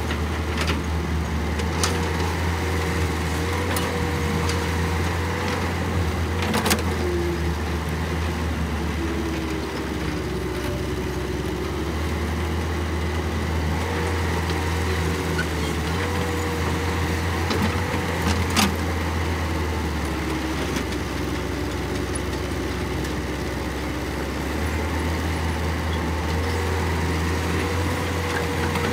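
Caterpillar crawler excavator's diesel engine running steadily under load, with a wavering hydraulic whine, as it digs and loads dirt into a dump truck. A few sharp knocks stand out, the loudest about seven and eighteen seconds in.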